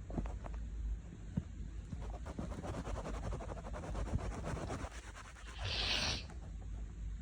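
Close-up scratching and rubbing with many fine crackles, then a short, sharp sniff through the nose about six seconds in.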